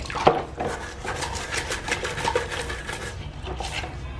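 A brush scrubbing a plastic washing-machine detergent drawer that has been soaked in hot water, baking soda and vinegar, in quick repeated strokes, about five a second.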